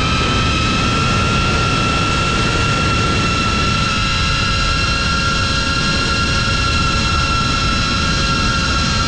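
FPV drone's brushless motors and propellers whining at a steady pitch under throttle, with wind rumbling on the onboard camera's microphone.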